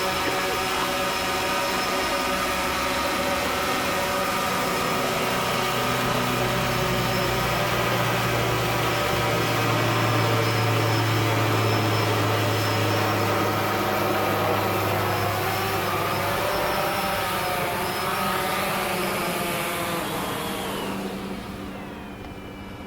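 Small quadcopter drone's electric rotors whining. Several pitches drift up and down as the motors change speed, and the sound fades near the end as the pitch falls.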